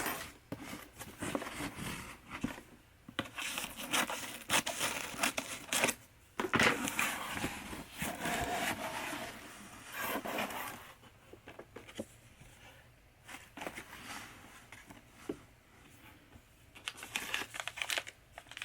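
Packaging being opened and rummaged through: paper and wrapping crinkling and rustling in irregular bursts, with some tearing, busiest in the first half and thinning out before picking up again near the end.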